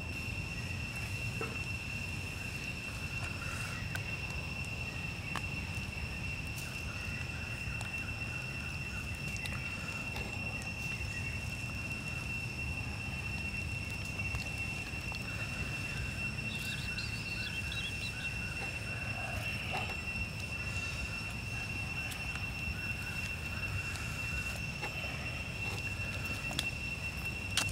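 A steady, unbroken high-pitched insect drone over a wood fire crackling softly, with a burst of sharper pops and crackles near the end.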